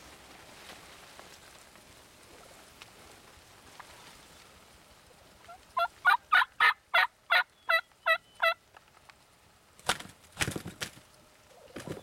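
Wild turkey yelping: a run of about ten loud, evenly spaced yelps, roughly four a second. Toward the end come a few sharp thumps and flaps as a tom beats its wings against a strutter decoy.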